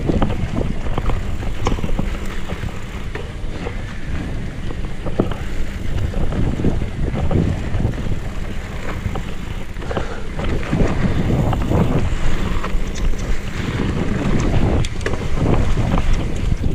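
Wind buffeting the microphone over a steady low rumble from a 2018 Specialized Kenevo electric mountain bike's tyres rolling on a rough gravel trail. Frequent short clicks and rattles come from the bike jolting over the ground.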